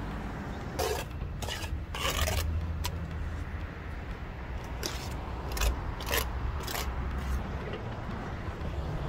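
Steel mason's trowel scraping and spreading mortar on veneer stone and in its joints: a series of short, irregular scrapes. A steady low rumble runs underneath.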